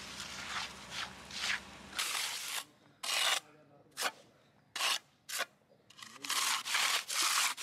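Hand finishing tools scraping across a freshly poured wet concrete slab in short, irregular strokes, with a longer stretch of scraping near the end.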